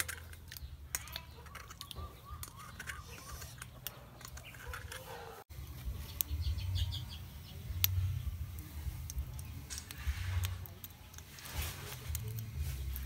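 Metal spoon clicking and scraping against a thin aluminium can while scooping and stirring beaten egg, over a steady low rumble.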